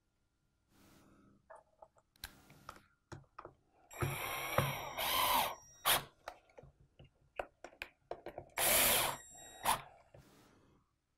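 Cordless drill turning the screws that fasten a suction-cup profile to an aluminium area gripper, in three short whining runs: two close together about four to five seconds in and one near nine seconds. Small clicks and knocks of parts being handled come between them.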